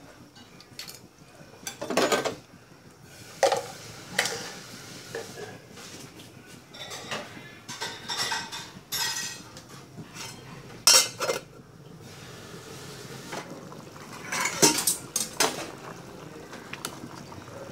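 A ladle knocking and scraping against a metal cooking pot of boiling soup while it is stirred, with irregular clanks every second or two.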